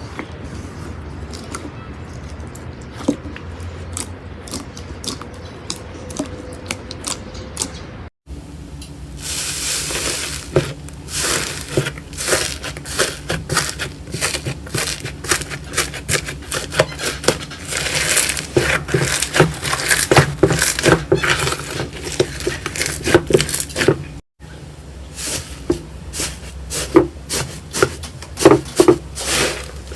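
Slime being played with: many quick, sticky clicks and crackles. They are sparse at first and dense and loud in the middle section. The sound cuts out briefly twice, at joins between clips.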